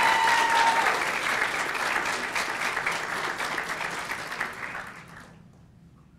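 Audience applauding, with a brief cheer at the start. The applause fades and stops about five seconds in.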